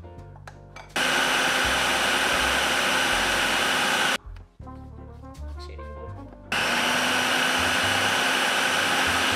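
Food processor motor running at full speed, grinding toasted walnuts into nut butter while they are still a dry, floury meal. It switches on about a second in, stops at about four seconds, and starts again about two seconds later. Running it in short bursts keeps the warm nuts from overheating the machine.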